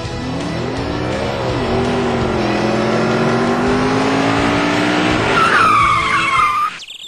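Motor vehicle engine revving, its pitch climbing and holding, then a high tyre screech about five seconds in that cuts off suddenly near the end.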